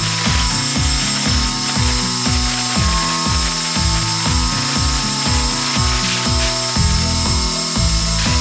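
Background music with a steady beat, about two beats a second, over held synth tones; the bass line changes about seven seconds in.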